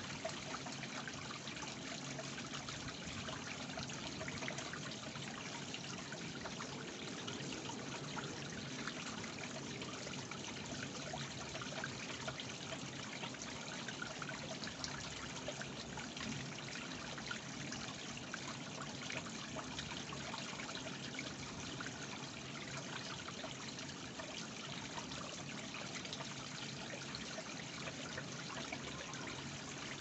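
Small ornamental stone waterfall trickling steadily down its rock steps into a garden koi pond.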